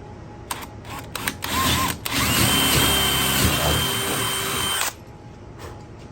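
Power drill with a 25/64-inch bit boring a hole in the wooden bed frame: a few short trigger blips, then about three seconds of steady drilling that stops suddenly.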